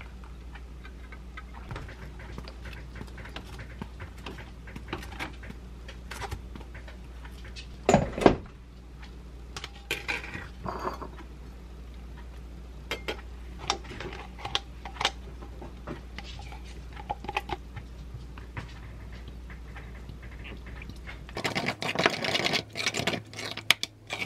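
Kitchen handling sounds: scattered light clicks and taps of a bottle and a ceramic bowl on a counter over a low steady hum, with a louder knock about eight seconds in. Near the end comes a quick run of clinking and scraping as a wooden spoon stirs thick yogurt in the ceramic bowl.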